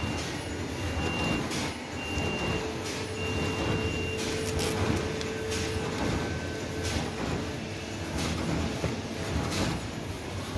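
Bag-making machine running steadily, with a sharp clack about once a second as each bag is cut to its final size. A thin high tone sounds on and off in the first few seconds, and a steady hum comes in after about two seconds.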